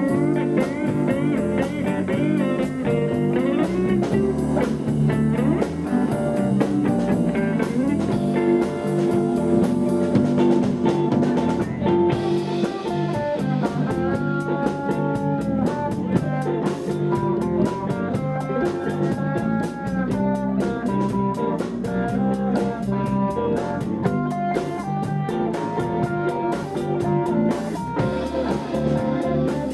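Blues band playing live: electric guitars, bass guitar and drum kit.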